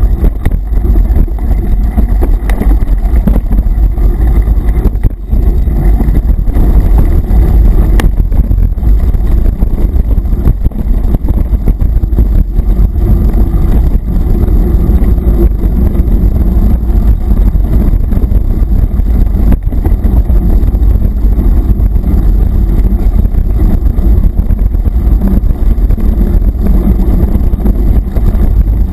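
Loud, steady rumble of wind and vibration on a mountain bike's action-camera microphone as the bike rides a dirt forest trail, with a few sharp knocks from bumps.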